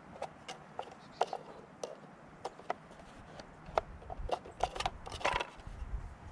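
Sharp plastic clicks and knocks as the air filter cover on a Craftsman chainsaw is handled and opened, getting busier in the second half, with a short scraping rustle about five seconds in.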